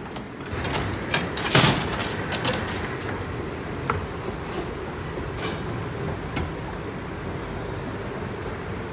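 Wire shopping cart clattering and rattling as it is rolled onto a cart escalator, with a sharp bang about one and a half seconds in. After that, steady mechanical running noise of the escalator with a few isolated clicks.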